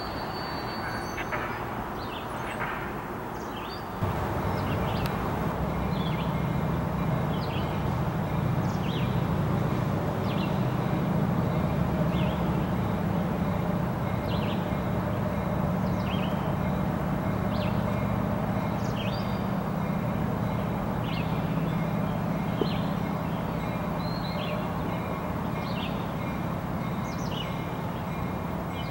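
Diesel switcher locomotive's engine running as it moves slowly along the yard tracks; its low drone steps up about four seconds in and holds steady. Short high chirps repeat about once a second over it.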